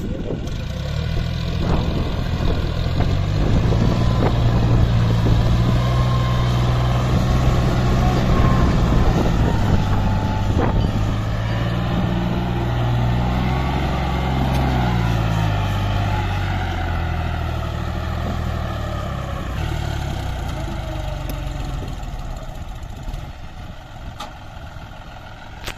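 John Deere tractor's diesel engine working under load as it pulls a fully loaded trolley over rough dirt. Its note rises in the first few seconds, dips and recovers around the middle, then eases off and grows quieter toward the end.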